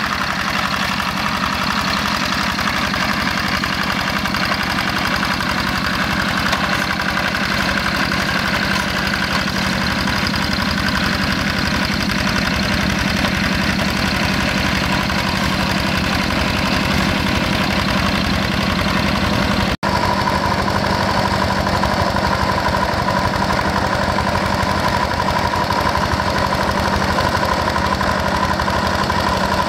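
Yanmar single-cylinder diesel engine of a Quick G1000 walking hand tractor running steadily under load while plowing a flooded rice paddy. The sound cuts out for an instant about two-thirds of the way through, after which a steadier whine is heard from the engine.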